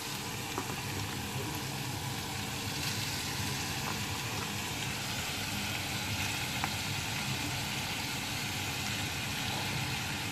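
Pork pieces and green beans sizzling in a frying pan, a steady frying hiss with a few faint clicks as handfuls of beans are dropped in.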